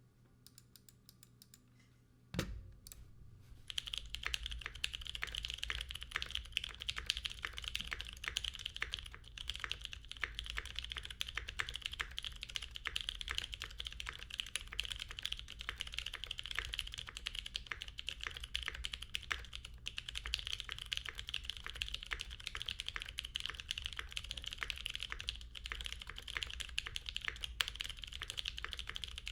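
Continuous fast typing on a Type Lab Eclipse mechanical keyboard with lubed Greetech Brown tactile switches, GMK keycaps, a polycarbonate plate and tape mod. A few faint clicks and a single knock come first, and the steady stream of keystrokes starts about four seconds in.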